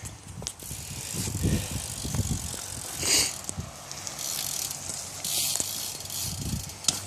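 BMX bike being ridden through a trick on pavement: tyres rolling and scuffing, the frame and parts rattling, with a couple of sharp knocks.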